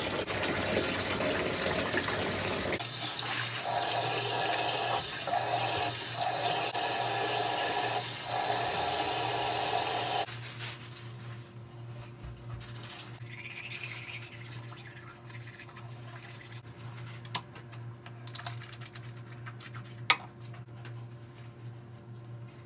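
Water running steadily, stopping abruptly about ten seconds in; afterwards a low steady hum with a few sharp clicks.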